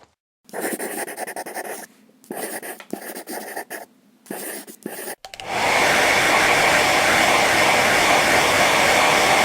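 Irregular rustling and crackling, then about five seconds in a steady, loud rushing noise with a whine starts and holds, like an electric appliance blowing air.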